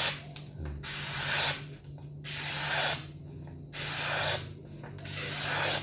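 A sharp golok blade slicing through a hand-held sheet of paper, about four long strokes. Each is a hiss that rises and then cuts off as the blade comes through, a paper-cutting test of the new edge's sharpness.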